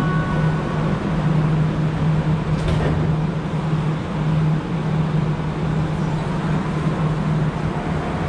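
Montreal Metro Azur rubber-tyred subway train running through a tunnel, heard from inside the car: a steady, even rumble with a constant low hum and a faint click about two and a half seconds in.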